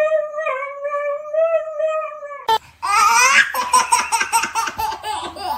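A dog holds one long, slightly wavering howl that stops about two and a half seconds in. Then, abruptly, comes a rapid run of choppy, laugh-like vocal sounds.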